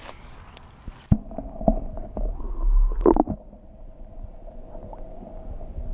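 Sound through a camera plunged under the water: a knock about a second in as it goes under, then dull, muffled knocks and a gurgle, loudest about three seconds in, as a crappie is let go by hand.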